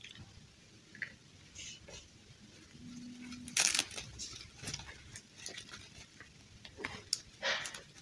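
Fabric of a doll dress rustling and plastic dolls clicking lightly as they are handled, in scattered short bursts, loudest a little past halfway and again near the end. A brief low hum sounds about three seconds in.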